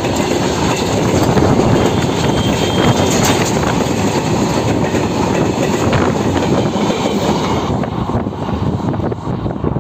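A goods train of BCNA covered wagons rolling past close by, its steel wheels clattering on the track. The noise eases off near the end as the last wagon and brake van go by.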